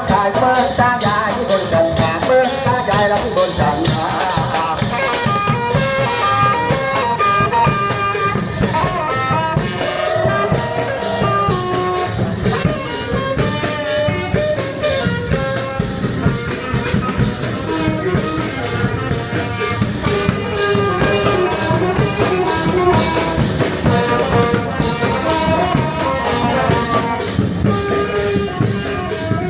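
Background music with brass instruments, trumpet and trombone, over a drum kit with a steady beat.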